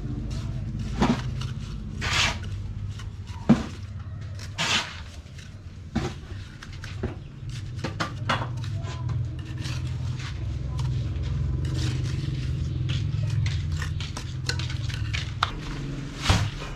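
Metal hand tools scraping and clinking against wet concrete in irregular strokes, over a steady low hum.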